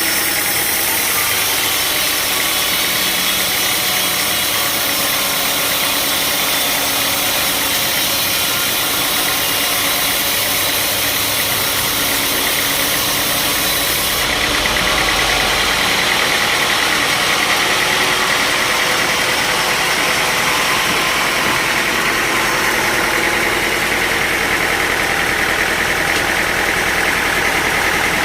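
Sawmill machinery running steadily: a continuous engine-like drone mixed with dense hiss, whose highest hiss drops away about halfway through.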